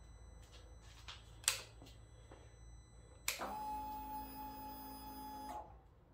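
Indian Scout Bobber's electrics being switched on, engine not yet running: a few sharp clicks, then just past three seconds another click and a steady electric whine that lasts about two seconds and cuts off.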